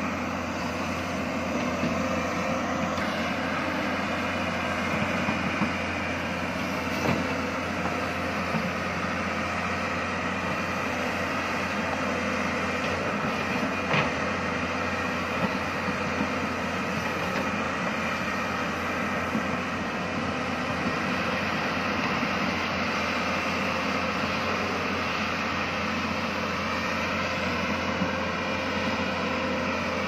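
Hyundai 220LC crawler excavator's diesel engine running steadily while it digs, with a few short knocks.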